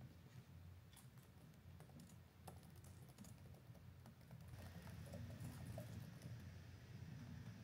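Faint typing on a laptop keyboard: a few scattered key clicks at first, then quicker, steadier typing from a little past halfway.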